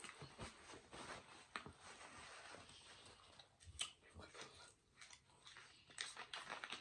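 Near silence with faint handling sounds: small clicks and rustles of a paper napkin and a plastic soda bottle being picked up, with a cluster of clicks near the end as the bottle's cap is twisted open.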